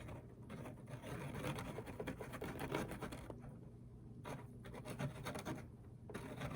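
Faint, irregular scratching and rubbing as hands work at a dissolving fizz ball in a bowl of water, with brief pauses.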